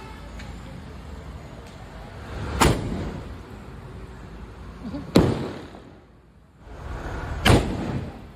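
Ground-set firework tubes firing: three sharp bangs about two and a half seconds apart, each led by a short rising whoosh.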